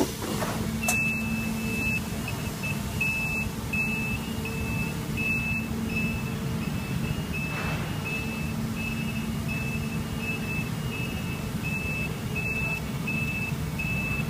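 Steady hum of factory machinery in a robotic welding cell, over which an electronic beeper repeats a short high beep about one and a half times a second. A brief hiss, like an air release, comes about halfway through.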